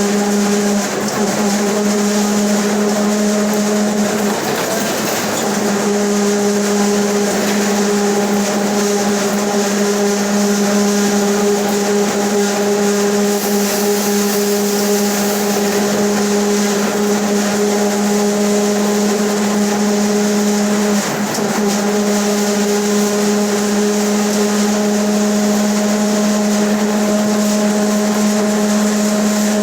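Mercedes-Benz OF 1721 BlueTec 5 bus's differential droning ('roncando') with one steady, even-pitched tone over the bus's running noise. The tone wavers briefly about four seconds in and dips again about twenty-one seconds in.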